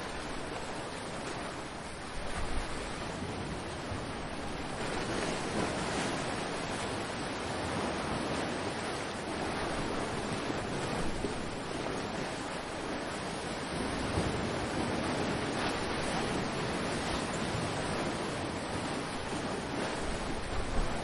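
Ocean surf: waves breaking and washing ashore in a steady rush that swells and eases. Wind buffets the microphone now and then with a low rumble, once about two and a half seconds in.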